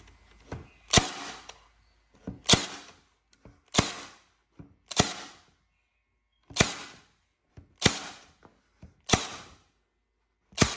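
Milwaukee M18 Fuel 2749 cordless narrow crown stapler firing quarter-inch crown staples into a wooden board, eight shots about a second and a quarter apart. A lighter click comes just before most of the shots.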